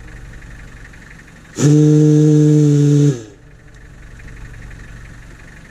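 Ibuki A200 air-powered ship horn sounding one blast of about a second and a half: a low, steady tone that sags slightly in pitch as it cuts off. It is one of three quick blasts that drain its 30-gallon compressed-air tank.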